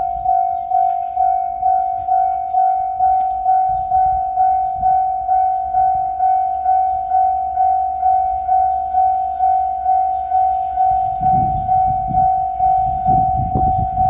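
Japanese level-crossing warning bell ringing its 'kan-kan' alarm, one steady pitch struck about twice a second. About eleven seconds in, the low rumble of an approaching diesel train joins it, with rhythmic thumps from its wheels.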